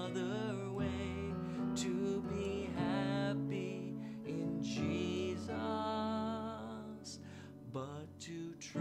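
A song with a singing voice over guitar and instrumental accompaniment.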